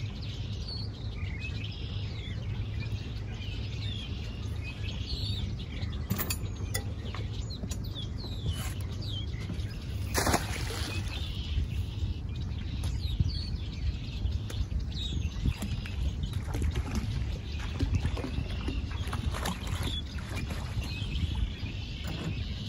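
Songbirds chirping throughout over a steady low rumble, with a few sharp clicks and rustles from gear being handled close by, the strongest about ten seconds in.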